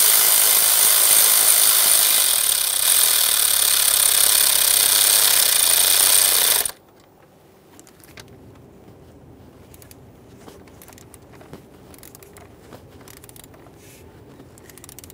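Power tool spinning the ignition coil's 8 mm mounting bolt down. It runs loud and steady for about seven seconds and cuts off abruptly, followed by faint scattered clicks of hand tightening.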